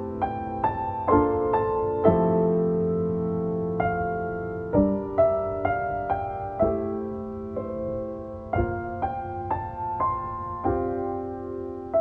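Slow, gentle background piano music: single notes and chords struck one after another and left to ring and fade.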